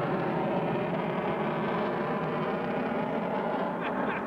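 F-22 Raptor's twin turbofan jet engines, a steady, dense jet noise as the fighter flies its display overhead.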